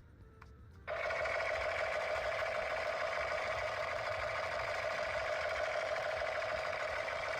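A battery-powered toy, most likely the electric toy gun, switched on about a second in, giving a steady electric whirring buzz that holds unchanged.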